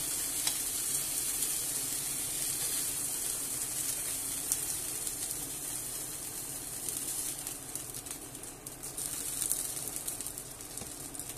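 Chicken pieces and sliced garlic sizzling steadily in olive oil in a frying pan, slowly getting a little quieter, with a few faint clicks of metal tongs as the pieces are lifted out.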